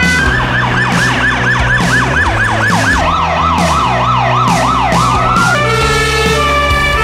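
Emergency vehicle electronic sirens cut together: a fast yelp sweeping up and down about five times a second, changing about three seconds in to a slower sweep about twice a second, then near the end a steady held tone.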